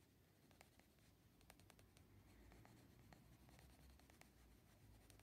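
Faint scratching of a Derwent Coloursoft coloured pencil shading lightly across paper, with scattered small ticks as the lead drags over the surface.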